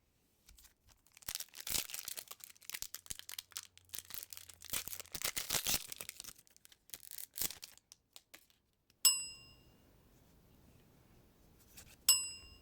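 A Lorcana booster pack's foil wrapper being torn open and crinkled for about seven seconds. Then come two short, bright, ringing dings about three seconds apart.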